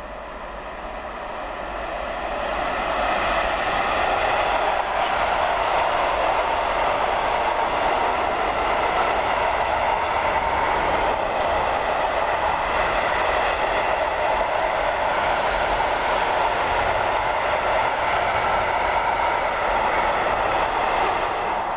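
Long freight train of tank, car-carrier and sliding-wall wagons rolling past on a mainline track: a steady rumble of steel wheels on rails that grows louder over the first few seconds as the train comes close, then holds steady as the wagons go by.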